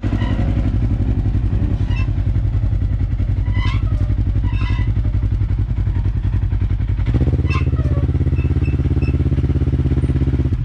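Polaris RZR side-by-side's engine idling steadily; its note changes about seven seconds in.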